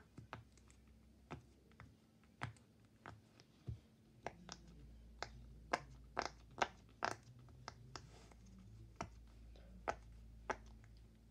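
Silicone pop-it fidget toy having its bubbles pressed one after another: a string of irregular sharp pops, about two a second.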